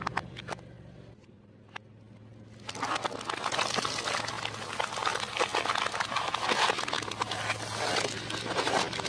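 Car tyre crushing things under its weight: a few sharp cracks of plastic toy capsules splitting at the start, then from about a third of the way in a dense, continuous crunching and crackling as the tyre rolls over jars of candy-coated chocolates. A low engine hum runs underneath.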